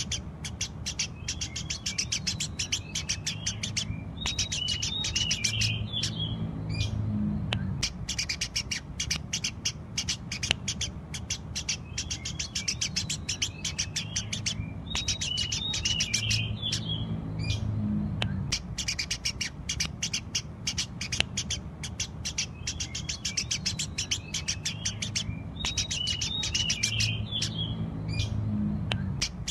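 Eurasian tree sparrows chattering: a dense, continuous run of rapid short chirps. The same stretch of chirping repeats about every eleven seconds.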